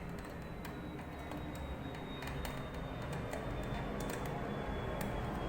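Scattered small clicks and taps of hands working inside an opened plastic bag sealer, handling its plastic housing and wiring connectors, over a steady low hum and a faint high whine.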